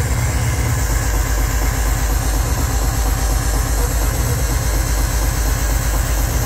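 Loud electronic dance music with a fast, heavy kick drum pulsing steadily in the bass.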